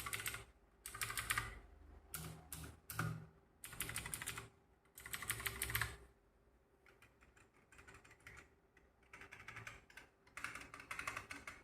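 Typing on computer keyboards, a membrane keyboard and a mechanical keyboard in turn. The keys go in bursts of rapid clicks, each about a second long with short pauses between. About halfway through the typing turns much quieter and sparser for a few seconds, then picks up again.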